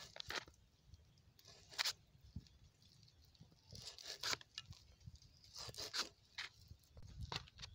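Raw pork being sliced against a curved blade: a handful of brief, irregular cutting and tearing sounds, faint, with the loudest strokes about two and four seconds in.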